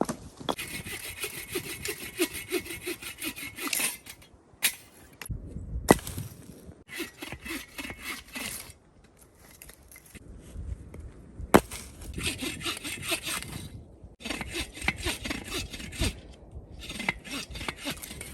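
Hand saw cutting through firewood in several bouts of quick back-and-forth strokes, with short pauses between bouts. A few sharp single knocks come in the pauses.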